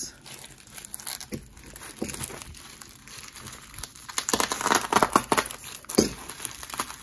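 Plastic bubble wrap crinkling and rustling as hands pull a package open, irregular crackles that grow louder and busier about two-thirds of the way through, with a sharp crackle near the end.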